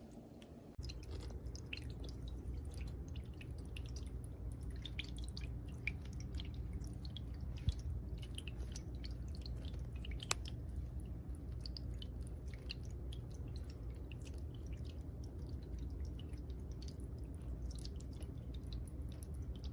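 Tabletop rock waterfall fountain running: water trickling and dripping over the rocks in many small irregular splashes, over a steady low hum. It starts abruptly about a second in.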